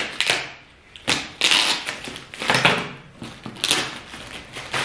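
Scissors cutting open a plastic mailer bag: about four short snips, roughly a second apart, with the plastic crinkling between them.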